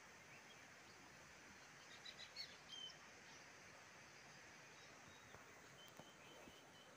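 Near silence: faint outdoor background with a few faint, short bird chirps, clustered about two to three seconds in and again near the end.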